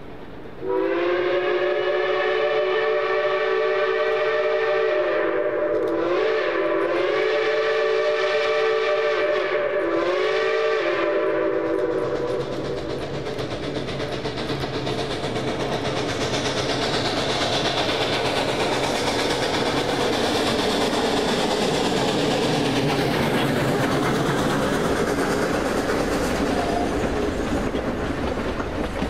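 A K-28 narrow-gauge 2-8-2 steam locomotive sounds its chime whistle for about the first eleven seconds, a held chord broken by two brief dips in pitch. The train then runs close past, with engine exhaust and the clatter of coach wheels over the rail joints.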